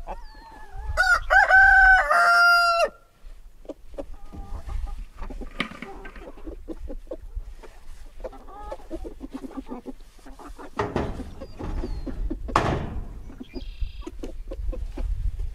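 A rooster crows once, loud and long, in the first few seconds, then hens cluck on and off, with knocks and rustling from the wire pen.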